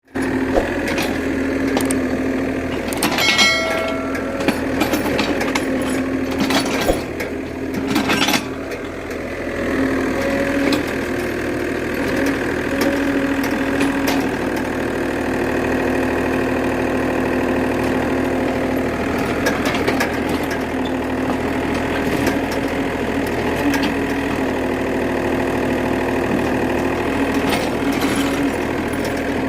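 Excavator's diesel engine running steadily, its tone shifting from moment to moment as it works, with a few sharp knocks, two of them about 3.5 and 8 seconds in.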